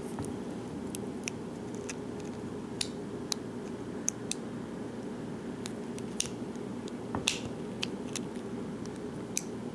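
Small metal tools working at a lock cylinder: about ten sharp, irregular light clicks and ticks over a steady low hum.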